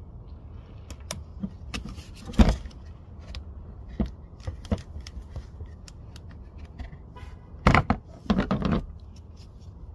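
Clicks, scrapes and knocks of plastic and metal parts as a Pontiac G5 / Chevy Cobalt blower motor is pushed out of its plastic mounting plate by hand. There is one loud knock about two and a half seconds in and a cluster of knocks near the end.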